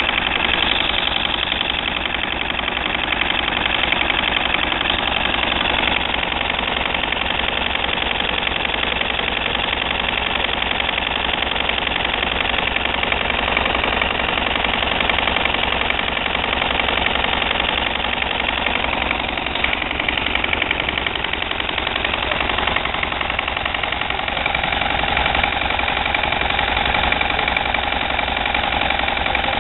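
Vintage stationary engine running steadily, with a rapid, even exhaust beat.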